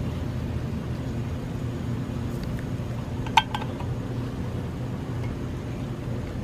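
Propane burner running steadily under a steel cooking disc, a low even rumble. A little past halfway there is a single sharp metallic clink.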